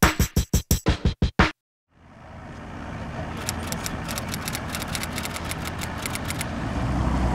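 The last of an intro music jingle, a run of quick staccato stabs that cuts off about a second and a half in. After a brief silence, steady outdoor background noise fades in. From about three and a half to six and a half seconds in comes a fast run of typewriter-like clicks, a caption sound effect.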